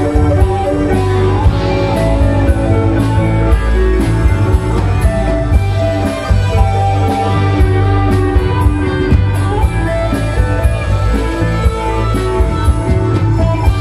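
Live rock band playing: electric and acoustic-electric guitars over a steady drum beat, amplified through a stage PA.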